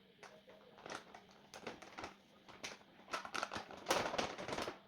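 Scattered light clicks, taps and rustling from handling kitchen things, coming thicker and louder in the last second or so.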